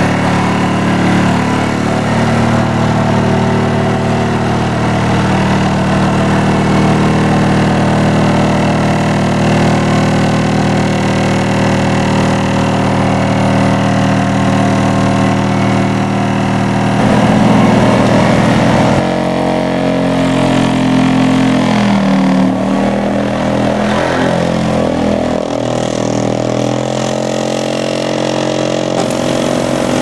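Daedong hydraulic vibratory pile driver on an excavator running: a loud, steady mechanical drone with several held pitches as it vibrates steel piles into the ground. The pitch pattern shifts about two-thirds of the way through, with less deep rumble after.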